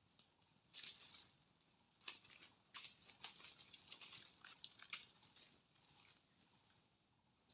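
Faint rustling and crackling of dry leaf litter and forest undergrowth handled by someone crouching among the plants, in irregular bursts that die down about six seconds in.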